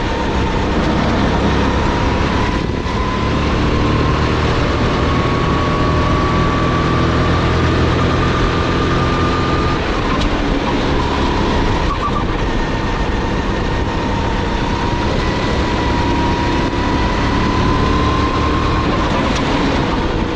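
Onboard sound of a Sodi GT5R kart's 270 cc, 9 hp four-stroke engine under full throttle, its note rising steadily as it pulls down a straight, dropping when the throttle is lifted about halfway through, then climbing again and easing off near the end. Wind rushes past the microphone.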